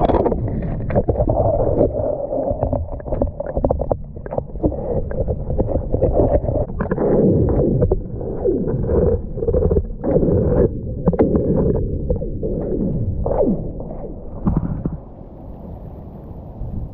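Strong wind buffeting the microphone in a heavy low rumble, with frequent bumps and knocks of handling throughout; it eases somewhat near the end.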